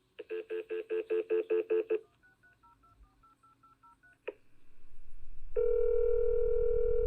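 Telephone call being placed: a rapid pulsing tone for about two seconds, then about ten faint keypad dialing beeps, a click as the line connects, a rising line noise, and a two-second ringback tone as the call rings through.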